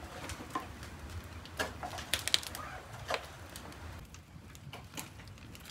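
Wood fire burning in clay tandoor ovens: irregular crackles and snaps over a low rumble, growing sparser near the end.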